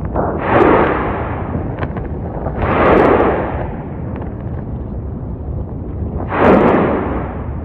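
Explosive eruption of the Klyuchevskaya Sopka stratovolcano: three loud booms over a steady low rumble. Each boom lasts about a second; the second comes about two seconds after the first and the third about three and a half seconds after that.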